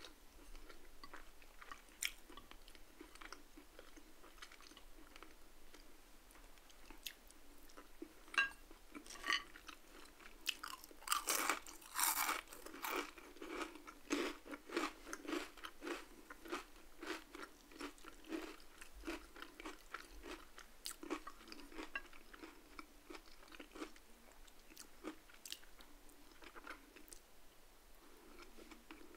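A person chewing and crunching crispy fried food, many crisp crunches in a row, loudest in a dense run from about eleven to sixteen seconds in.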